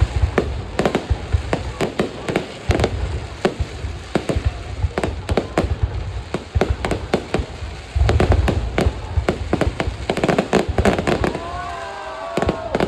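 Fireworks display: a rapid, dense run of sharp bangs and crackles over deep booms from the aerial shells, with the heaviest burst about eight seconds in.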